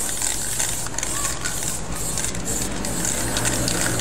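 Aerosol spray-paint can hissing in short strokes, breaking off briefly between strokes, as graffiti letters are sprayed onto a wall. A low steady hum runs underneath.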